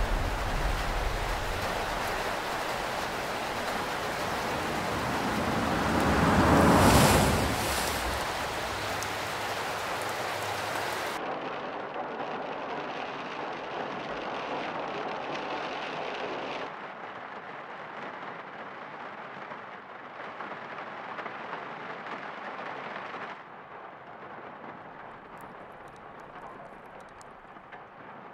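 Steady heavy rain, with a rumble of thunder swelling and fading about seven seconds in. After that the rain sounds muffled, as heard from inside a room through a window, and it grows quieter in a couple of steps, with a few faint ticks near the end.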